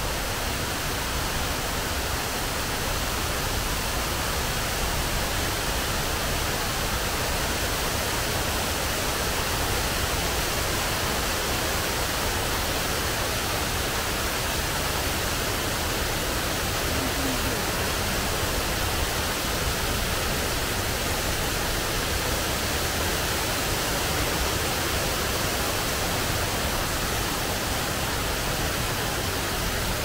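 Steady, even rush of falling water from a waterfall, Shiraito Falls, with no change in level throughout.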